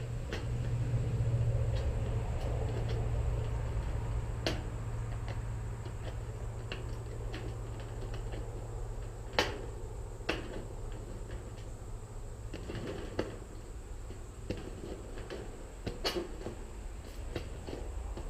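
Hand work on a piece of thin sheet-metal fascia trim: scattered light clicks and taps, with sharper knocks about nine and ten seconds in and again near sixteen seconds, over a low steady hum.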